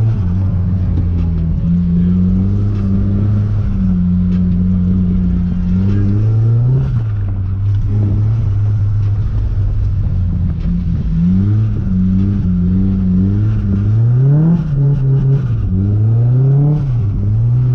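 Turbocharged car engine under hard driving. Its pitch holds fairly steady at first, then from about six seconds in it repeatedly revs up and drops back, each rise and fall lasting a second or two, as the throttle is worked.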